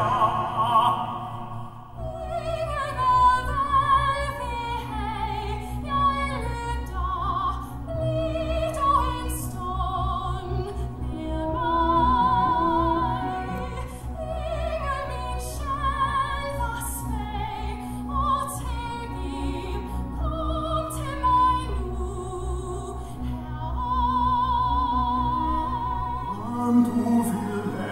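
Operatic musical-theatre singing with wide vibrato over sustained low orchestral accompaniment. The accompaniment changes shortly before the end.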